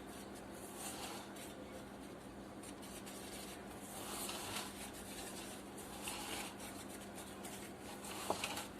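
Hand whisk beating eggs in a bowl: soft, faint scraping and rubbing strokes, with a sharp tap near the end.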